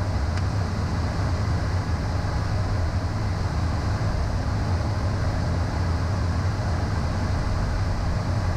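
Steady cockpit noise of a Beechcraft Premier business jet in descent: an even rush of air over a low, constant hum.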